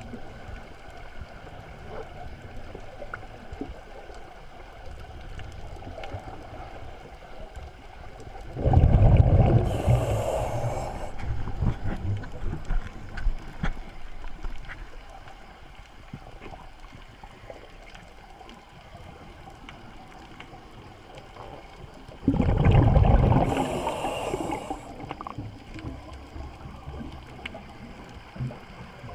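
Scuba diver breathing out through a regulator underwater, heard twice: each exhalation is a sudden rush of bubbles that breaks into bubbling and fades over a couple of seconds, over a faint steady underwater background.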